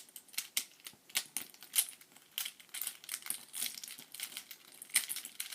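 Plastic Rubik's cube pieces clicking and clattering as the cube is taken apart and the centre caps are popped off, in a run of sharp, irregular clicks.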